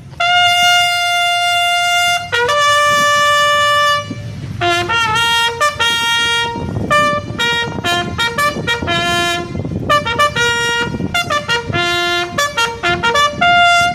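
Military bugle call sounding the honours for a general: two long held notes, then a quick run of short notes that jump among the bugle's few natural tones.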